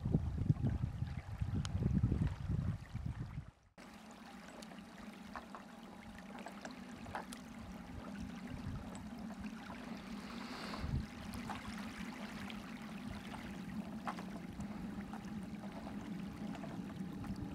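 Wind buffeting the microphone with a low rumble for the first few seconds. After a sudden cut, shallow water laps softly at the shore over a faint steady low hum.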